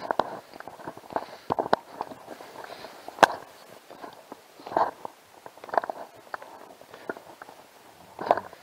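A hiker's footsteps on a rocky mountain trail: boots scuffing and clicking on stone at an irregular walking pace, with one sharp knock about three seconds in.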